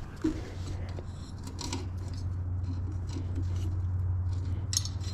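Drive chain being handled while fitting it to the rear wheel, metal links clinking and rattling in short bursts, loudest near the end, over a steady low hum.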